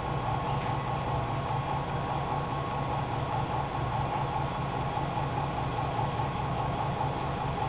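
Nanofiltration rig's feed pump running with a steady mechanical hum, with the system held near 10 bar.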